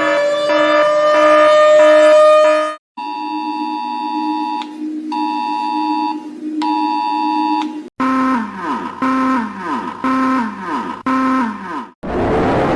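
A string of different emergency warning alarms cut back to back. First a rising siren wail with quick pulsing beeps over it, cut off about three seconds in. Then an electronic alert tone: three long high beeps over a steady low tone, followed by a run of short falling tones, and near the end another siren starting to wind up.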